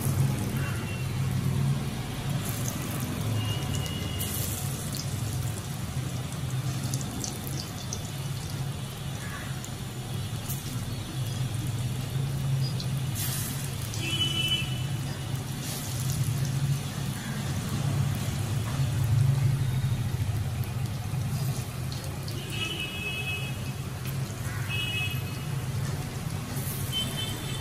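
Onion pakoras deep-frying in a kadhai of hot oil, a steady sizzle, over a low rumble of road traffic that swells and fades. A few short high beeps sound near the middle and again later.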